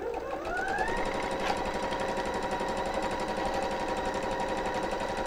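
Electric sewing machine stitching. The motor's whine rises in pitch as it speeds up over about the first second, then holds steady with a fast, even needle rhythm.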